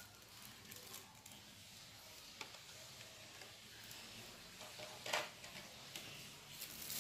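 Faint handling of carded toy cars on a table: a few light clicks and a short rustle about five seconds in.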